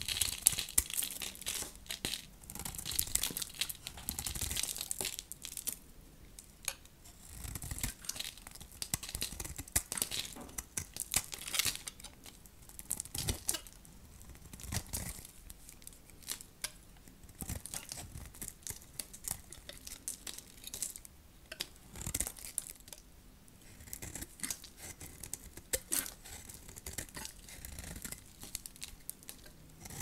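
Dry, hard soap being cut and carved with a knife, crunching and crackling in short, irregular strokes with brief pauses between them.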